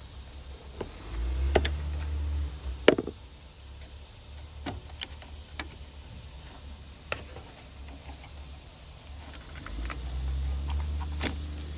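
Plastic clicks and scrapes of a screwdriver prying up the locking lever on an engine-computer (PCM) wiring connector and fingers working the connector loose, the sharpest click about three seconds in. A low rumble comes and goes twice.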